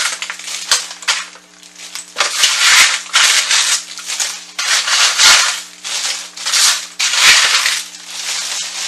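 Handfuls of crisp, oven-dried bread cubes being scooped off a parchment-lined baking sheet and dropped into a plastic bread bag. They make a dry crunching and rustling with the crinkle of the plastic, in repeated bursts about once a second.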